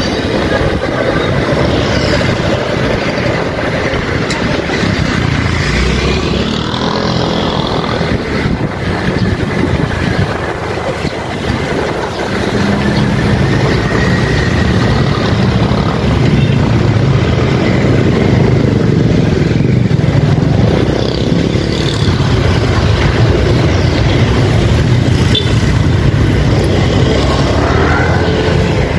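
Street traffic close around a bicycle: motorcycle and car engines running, a steady low engine hum growing stronger about halfway through, and engine pitch rising now and then as motorbikes go by.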